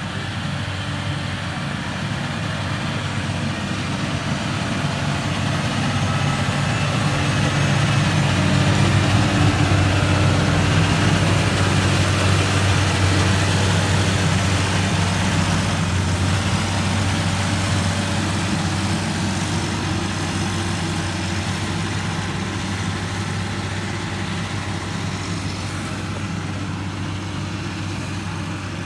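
Heavy construction machine's diesel engine running steadily with a low hum. It grows louder until about ten seconds in, then slowly fades.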